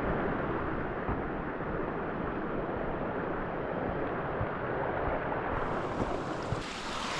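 Steady rushing of rain-swollen runoff water flowing along and down the trail, an even noise with no breaks.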